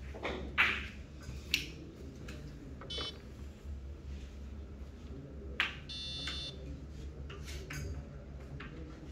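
Sharp clicks of billiard balls as they are handled and set down on a carom billiard table, the loudest just after the start and another about five and a half seconds in. Two short high beeps sound, one about three seconds in and a slightly longer one around six seconds.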